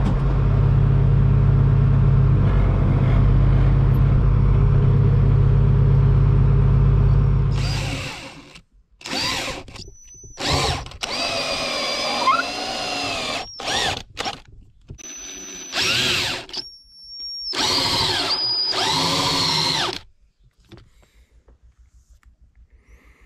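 A vehicle engine running steadily for about eight seconds, then a run of short, abruptly cut bursts of a high machine whine whose pitch rises and falls.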